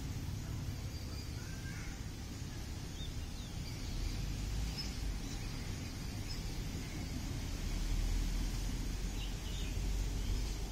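Outdoor ambience: a steady low rumble that grows louder about four seconds in and again around eight seconds, with a few faint bird chirps.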